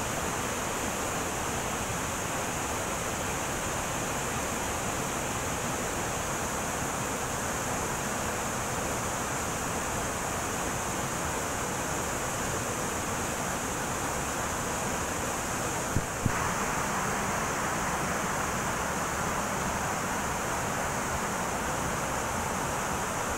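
Waterfall rushing steadily into a pool. About 16 seconds in there is a brief knock, after which the rush sounds a little brighter and louder.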